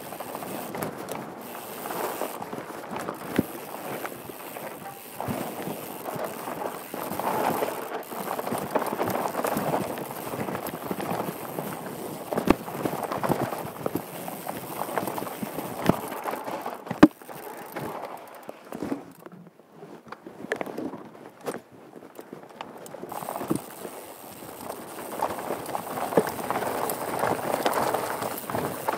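Downhill mountain bike riding fast over a dirt and rocky trail, picked up by a helmet-mounted camera: a continuous rough rumble of tyres on dirt with frequent sharp knocks and rattles from the bike over stones and roots. It eases off for a few seconds past the middle, then builds again.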